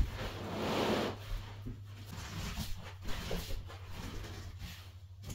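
Bonded-foam carpet pad being handled and unrolled on the floor: a thump right at the start, about a second of rustling as the pad slides, then light rustles and shuffling as the installer kneels on it, over a steady low hum.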